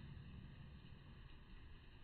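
Near silence, with a faint low rumble.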